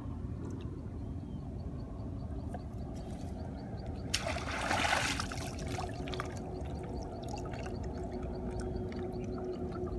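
Water pouring and splashing for about a second, about four seconds in, over a steady low rumble.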